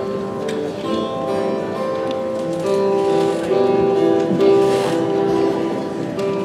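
Live worship band playing quiet instrumental music: acoustic guitar strumming under long held chords that change every second or so.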